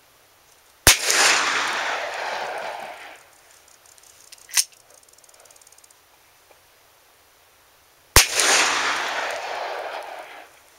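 .44 Magnum Taurus Raging Bull revolver fired twice, about seven seconds apart; each shot is a sharp crack followed by a long echoing tail of about two seconds. Between the shots there is a single sharp click.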